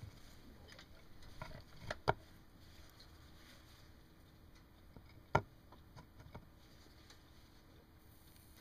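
A few sharp clicks and knocks of wire and hand tools being handled and set down on a workbench: two close together about two seconds in, a louder knock about halfway through, then a couple of lighter taps, over a quiet workshop background.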